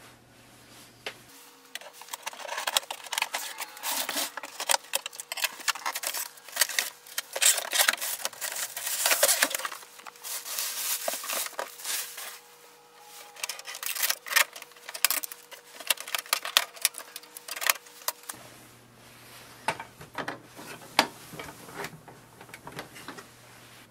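Canon Pixma TS3420 printer being unpacked and handled: irregular rustling of packaging with scattered clicks and knocks.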